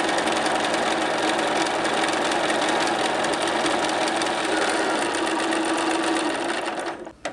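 Bernina sewing machine running steadily, stitching a straight seam down two fabric strips sewn together, then stopping near the end.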